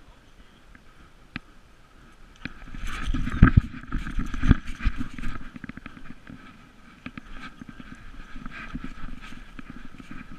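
A collar-mounted action camera on an Irish wolfhound jostling as the dog breaks into a run, with knocking and rubbing against the camera and a quick rhythm of footfalls on a dirt trail. Two heavy thumps come a second apart, about three and a half seconds in.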